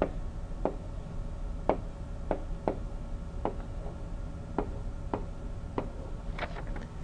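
Light clicks and taps of a stylus on a pen tablet as numbers are handwritten, about a dozen spread irregularly, over a low steady hum.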